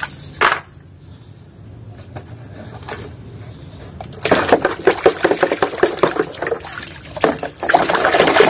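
Water sloshing and splashing in a basin as toy trucks are swished through it by hand to wash off mud. A short splash at the start, a few quiet seconds, then busy, continuous splashing from about four seconds in.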